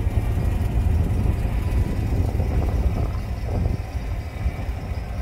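Car driving along a street: a steady low rumble of engine and road noise.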